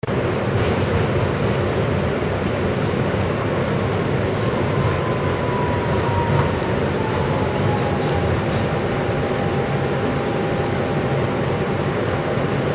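New York City subway train rolling along, heard from inside the car: a steady rumble of wheels on rail. About a third of the way in, a faint whine falls in pitch and then holds.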